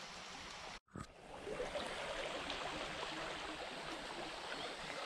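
Shallow creek water running steadily over rocks in a riffle, with a brief drop-out just before a second in.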